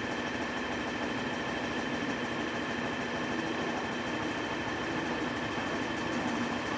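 Tractor engine running steadily with an even mechanical drone.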